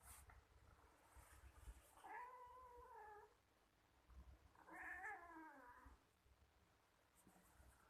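A cat meowing twice: a long, fairly even meow about two seconds in, then a wavering meow that falls in pitch about five seconds in.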